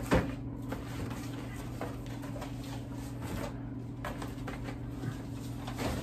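Cardboard cases of canned cat food being lifted out of a cardboard shipping box: a sharp knock just after the start, then light knocks and rustles of cardboard against cardboard. A steady low hum runs underneath.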